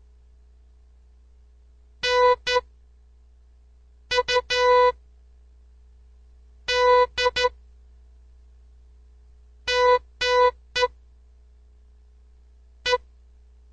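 Morse code sent as a steady pitched beep tone: five characters, each a group of long and short beeps with pauses between. The groups go dah-dit, di-di-dah, dah-di-dit, dah-dah-dit and a single dit, which read as the letters N, U, D, G and E.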